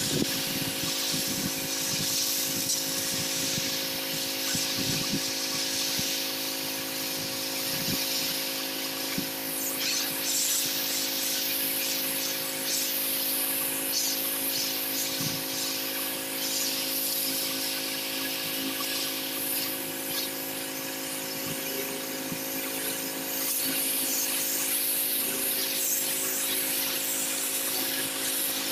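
Pressure washer running steadily: a constant motor hum under the hiss of high-pressure water spraying.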